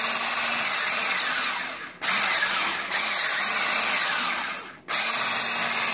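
Electric hand whisk running at speed, beating mashed banana into whipped egg whites in a glass vase. The motor winds down and cuts out about two seconds in, starts again at once, fades out again a little before five seconds and restarts.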